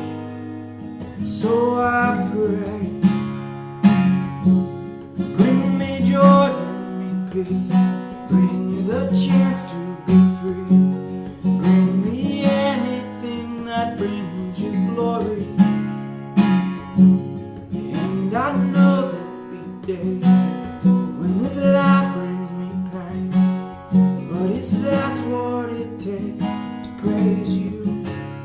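Acoustic guitar strumming chords in a steady rhythm, accompanying a slow worship song.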